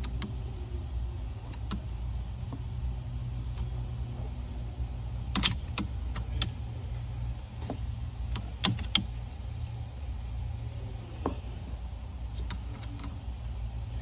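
Sharp, irregular clicks and taps of a test light's metal probe and plastic handle touching fuse terminals and a power strip in a car's fuse box, over a steady low hum. The loudest clicks come in clusters about five and nine seconds in.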